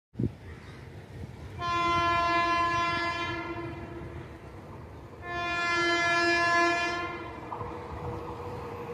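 An Indian Railways WAP-7 electric locomotive's horn sounding two long blasts of about two seconds each, the second slightly louder, as the train approaches the station. After the horn a faint steady hum and low rumble of the oncoming train carry on. A brief sharp knock is heard right at the start.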